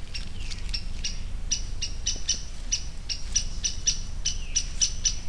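A small animal's rapid run of short, sharp chip calls, about four to five a second, with a couple of downward-slurred notes among them, over a steady low rumble.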